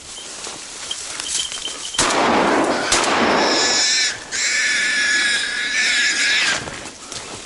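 Wild boar squealing loudly: a harsh, ragged squeal starting about two seconds in, a brief break, then a second, steadier high-pitched shriek.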